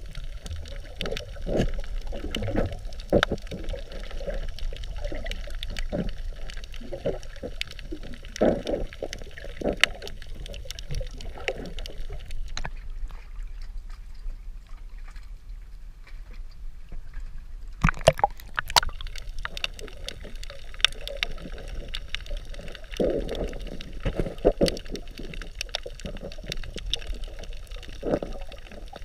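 Water sloshing and gurgling around an underwater camera, with many scattered sharp clicks and crackles. About halfway through it goes quieter for several seconds as the camera breaks the surface, then sharp clicks come as it goes back under.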